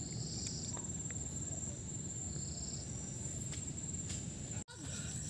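Insects, most likely crickets, trilling in one steady high-pitched tone over a low rumbling background, with a few brief higher chirps; the sound drops out for an instant near the end.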